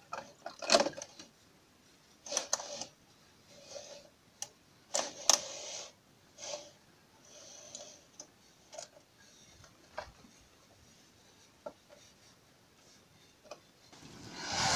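Handling noise as stiff green plastic mesh netting is pushed down into a blue plastic drum of a barrel filter: irregular short clicks, knocks and scrapes of plastic on plastic. A longer rushing noise swells up near the end.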